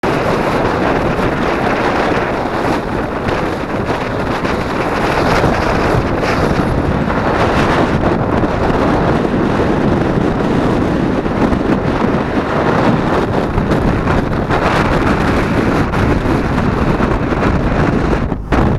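Strong hurricane wind blowing hard across the microphone, loud and steady, over the wash of heavy surf. It drops briefly just before the end.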